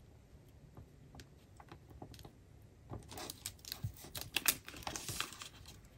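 Fingers with long nails handling a paper sticker on a planner page: quiet with a few faint ticks at first, then from about three seconds in a quick run of small clicks and paper rustling as the crooked sticker is lifted and pressed back down.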